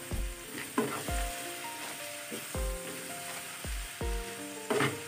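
Chicken pieces sizzling in a hot nonstick frying pan while a spatula stirs and scrapes them, with a few sharper scrapes. Soft background music with held notes and a steady low beat plays underneath.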